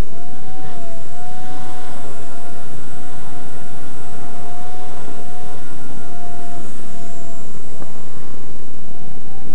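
Blade 130 X micro RC helicopter in flight: a steady high whine from its motor and rotors, wavering slightly in pitch, over a heavy low noise on the microphone.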